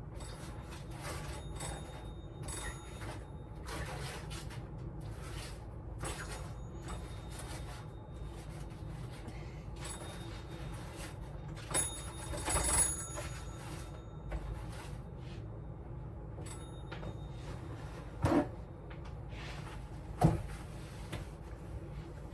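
Kitchenware and dishes being handled, with light clinks and knocks over a steady low hum. There are louder clinks about twelve seconds in and twice more near the end.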